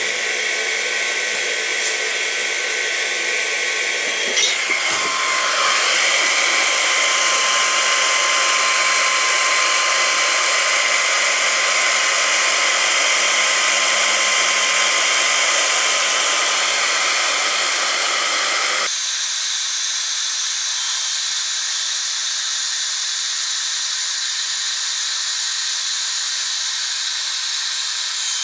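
Hot-air gun blowing steadily: an even hiss, with a faint whine through the middle. About two-thirds of the way through, the sound changes abruptly and becomes thinner, losing its low part.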